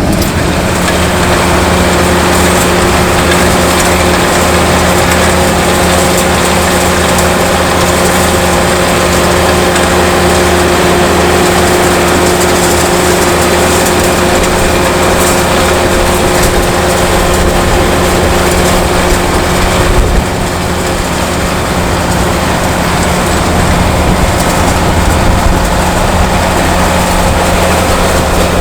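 John Deere 7290R tractor's six-cylinder diesel running steadily, a continuous drone with a steady hum, dipping briefly about twenty seconds in.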